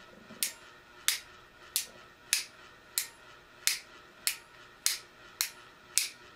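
Husky ratcheting PVC pipe cutter clicking as its handle is squeezed, the blade advancing one ratchet tooth at a time: a sharp click about every two-thirds of a second, around ten in all.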